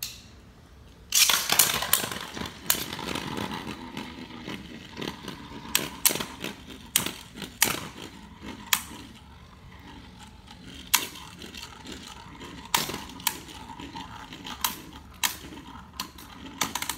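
Two Beyblade spinning tops whirring and scraping around inside a glazed ceramic bowl, starting loudly about a second in, with repeated sharp clacks as they strike each other and the bowl's wall.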